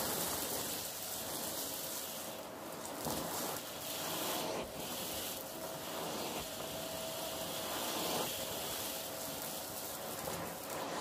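Stick vacuum running with a steady motor whine and rushing suction hiss, its brush tool sucking up fluffy lint and crunchy bits from a shag rug. The suction noise surges several times as the tool is pushed into the pile.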